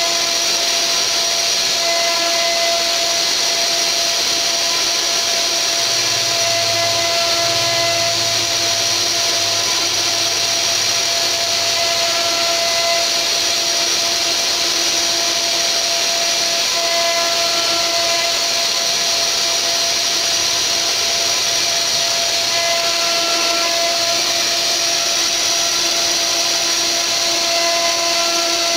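500 W spindle of a mini CNC router running steadily, its router bit rough-carving a wooden relief panel: a constant high whine over the hiss of cutting wood, with a few humming tones that fade in and out as the machine moves.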